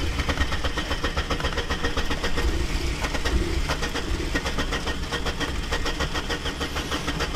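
Saab's starter motor cranking the engine over and over without it catching, a steady rhythmic churn. The car is starved of fuel: the nearly empty tank's fuel has run to one side with the car parked on a slope, so the pump cannot pick it up.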